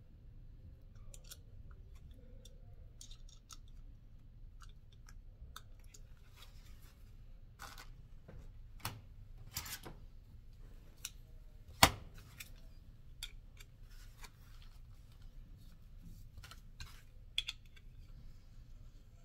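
Hex keys and small metal bike parts handled on a workbench: scattered light clicks and taps, with one sharp knock a little past the middle, over a faint low hum.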